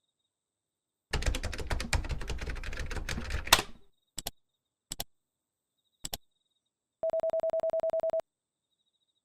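Rapid keyboard typing for about three seconds, ending in one hard keystroke, then three single clicks about a second apart. Near the end comes about a second of a rapidly pulsing electronic telephone ring tone.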